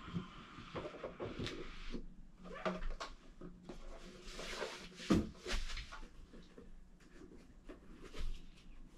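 A cardboard box being opened and its packing handled: scattered rustles, scrapes and light clicks, with a louder knock about five seconds in.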